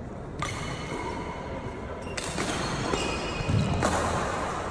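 Footfalls of badminton shoes on a wooden hall court and shuttlecock hits, with a heavy low thud about three and a half seconds in as a player walks close past the microphone.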